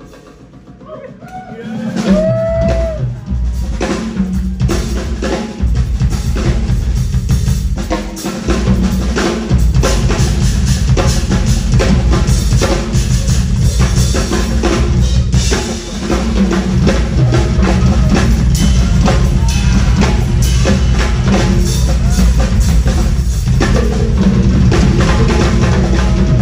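Live rock drum solo on a full drum kit, with dense bass drum, snare and rimshot strokes, heard loud through the hall. The drums come back in about two seconds in after a short drop in level.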